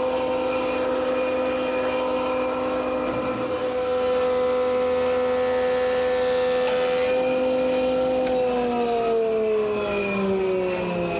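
Surface planer motor running with a steady whine while a cypress board is fed through and planed, a little louder from about four seconds in. Past the eight-second mark the motor winds down, its pitch falling steadily.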